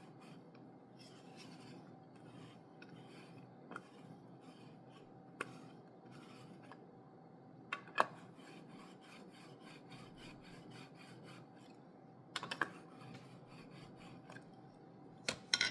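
Sealing tool rubbed and pressed over the adhesive foil lid of a refilled Nespresso Vertuo pod to stick it to the rim: faint, continuous scraping, with a few sharp clicks along the way.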